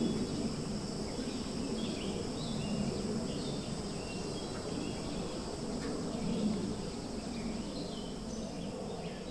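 Outdoor woodland ambience: a steady high-pitched insect drone, with scattered short bird chirps over a low background rumble.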